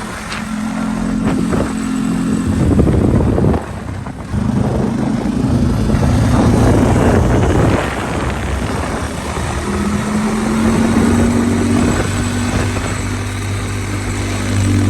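A vehicle's engine running while it is driven, its pitch rising and falling with the throttle, with a short drop in level about four seconds in and a rising pitch near ten seconds.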